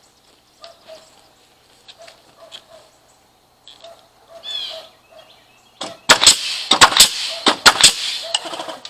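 A short bird call partway through, then a loud, irregular run of sharp knocks and clatter over the last three seconds.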